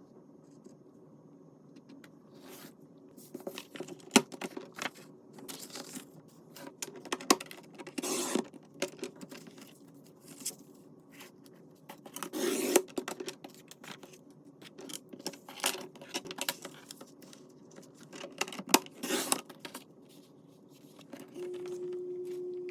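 Sheets of craft paper being handled on a work surface: rustling, sliding and tearing, with sharp taps and clicks scattered through. A steady hum starts near the end.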